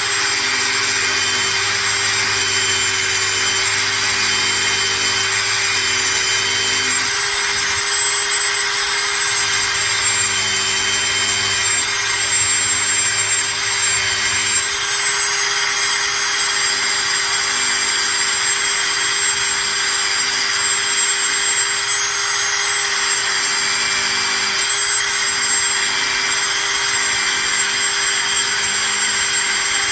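Powered buffing wheel spinning steadily, a steady hum with a hiss over it, as a plastic eyeglass lens is polished against the compound-loaded wheel.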